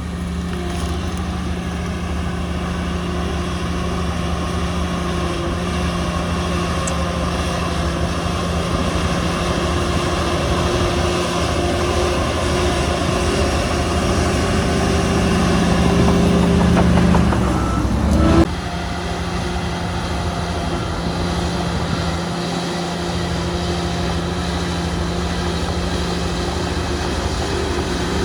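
Heavy earthmoving machine's diesel engine running steadily under load, slowly getting louder. About two-thirds of the way in the engine note drops abruptly, then the engine runs on a little quieter.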